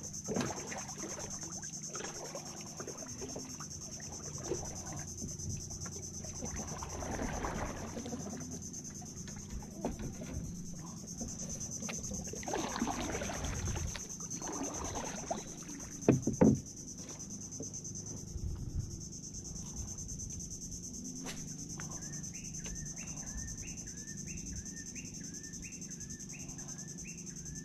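Insects droning in a steady high buzz over water sloshing around a small wooden outrigger canoe as it moves through the water, with one sharp knock against the boat about sixteen seconds in. A run of short repeated chirps, about two a second, comes near the end.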